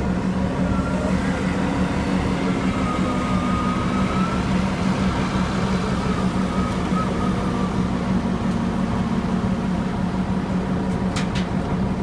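Diesel engine of a Huddig 1260C backhoe loader running steadily under operation, with a faint wavering whine over it for a few seconds near the start.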